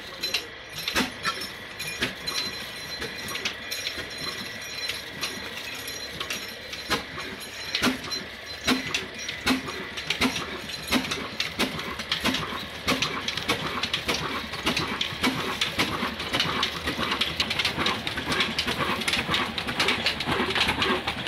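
Old Ruston Hornsby 22 HP diesel oil engine starting up and running, a rhythmic clatter of knocking firing strokes that come faster and more evenly as the engine gathers speed.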